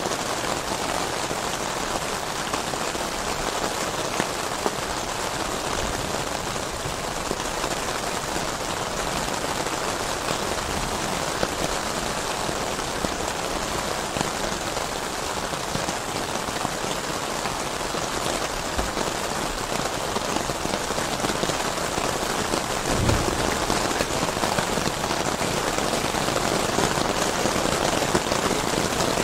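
Heavy rain falling steadily in a mountain thunderstorm. A brief low thump comes about three-quarters of the way through, after which the rain grows slightly louder.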